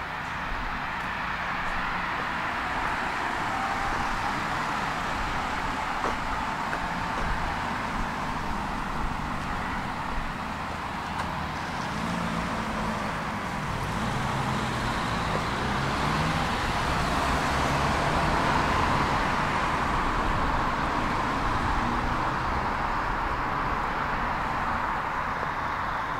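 Tram running on its track: a steady rumble of wheels and running gear, with a low hum in the middle stretch.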